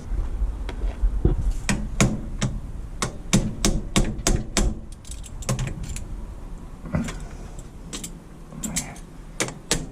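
Light hammer taps on metal at the battery terminal: a quick, irregular run of sharp taps, a pause, then a few more taps near the end. The terminal is being knocked down onto its post after it was found dirty and running warm.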